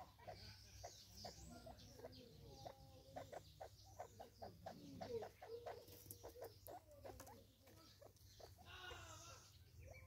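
Faint low clucking calls from a group of francolins feeding at a seed feeder, mixed with many quick light taps of beaks pecking on the wooden stump. Near the end there is a higher, more varied call.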